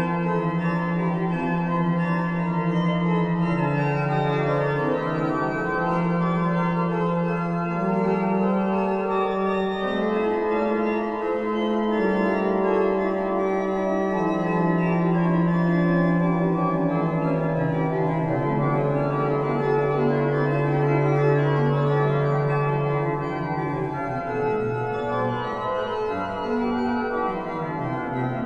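1809 Meere pipe organ, a two-manual mechanical-action slider-chest organ with independent pedal, playing a slow polyphonic piece. Long held low notes change every few seconds beneath busier upper voices.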